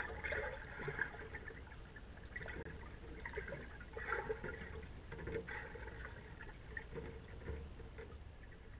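Faint, muffled water sound picked up by a camera submerged in a swimming pool: irregular gurgling and bubbling.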